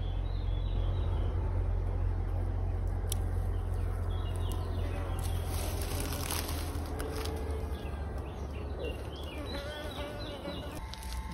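Bees buzzing close by around flowering lavender, a steady low hum that fades about two-thirds of the way through. Small birds chirp in short bursts now and then.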